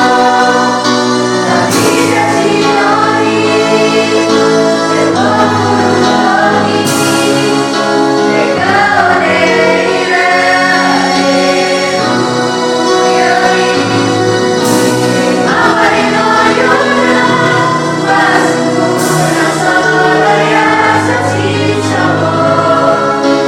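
A school vocal group singing together in unison, all voices on one melody line, at rehearsal.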